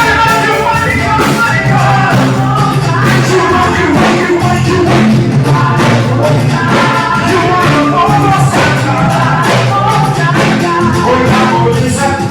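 Live band music with singers, played loud, with a steady beat from the percussion under the voices.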